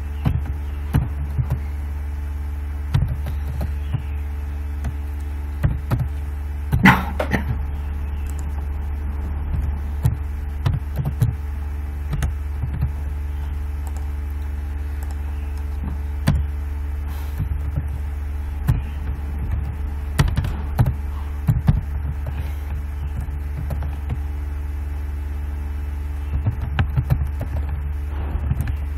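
Scattered computer keyboard keystrokes and clicks over a steady low electrical hum, with one brief louder noise about seven seconds in.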